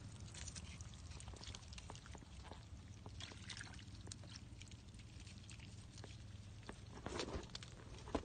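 Faint wet squelches, slaps and small splashes of eels and small fish writhing in shallow mud and muddy water, with a louder splashy burst about seven seconds in.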